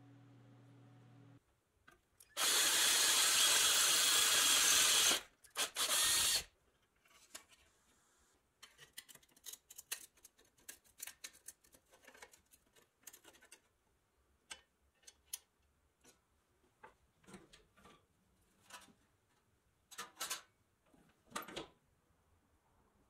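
About two seconds in, a loud, steady noise for about three seconds, followed by two short bursts. After that, a flat-blade screwdriver works at a toy car's pressed-steel chassis in many short scrapes and clicks of metal on metal.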